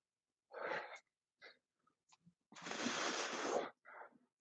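A man breathing hard from exertion during resistance-band rows: a short, forceful exhale about half a second in, a few faint puffs, then a longer exhale of about a second near the three-second mark.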